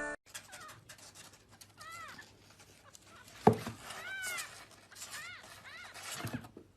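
A cat meowing four times, short high calls that rise and fall in pitch, with a sharp knock about halfway through and a soft thud near the end.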